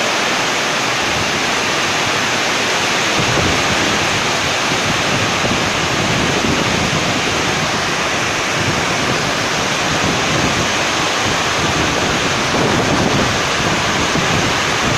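Heavy rain pouring down in a storm with strong gusting wind, a loud steady rush. Wind buffets the microphone with low rumbling from about a second in.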